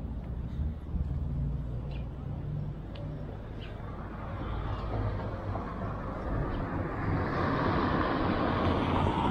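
Street traffic: a low steady rumble, then a car's engine and tyres swelling as it passes close by in the second half.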